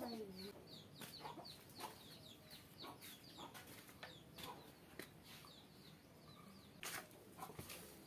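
Chicks peeping faintly: short, high, falling peeps repeated two or three times a second. A few soft knocks come through, the clearest about seven seconds in.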